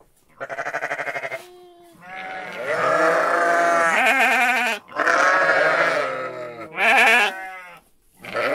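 Sheep in a flock bleating: about five calls, several overlapping, the first with a rapid quaver.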